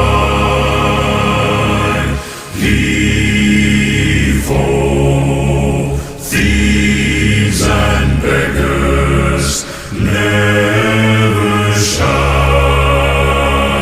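A choir singing a slow pirate sea shanty in long held phrases over a deep bass, with short breaks between the phrases.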